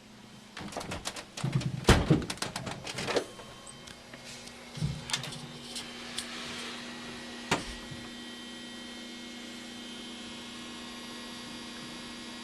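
Samsung DLP rear-projection TV buzzing steadily from its lamp area, a high-pitched electrical hum with many overtones. It is the fault that comes on when the set is switched back on before it has fully shut down, and it lasts until the lamp turns off. Several knocks and rustles in the first few seconds, and a thud and a click soon after, come before the hum settles.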